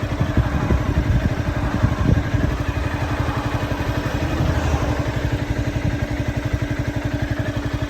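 Motorcycle engine idling steadily with a fast even pulse, a few sharper knocks in the first couple of seconds.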